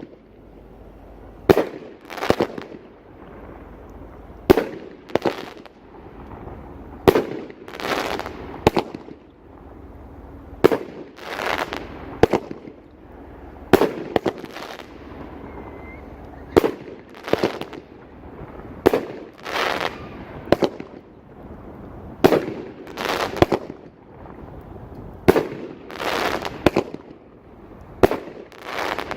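Absolution consumer firework cake firing shot after shot, about one every two and a half to three seconds. Each shot is a sharp launch thump followed within a second by a longer aerial burst that trails off.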